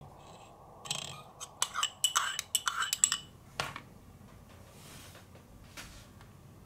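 Metal teaspoon stirring and scraping against the inside of a small ceramic cup: a quick run of clinks lasting about two seconds, then one more click as the spoon is lifted out.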